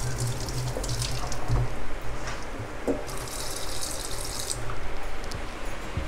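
Kitchen tap running into a sink while raw chicken breast is rinsed under it, with a few small knocks of handling. The water cuts off sharply about four and a half seconds in.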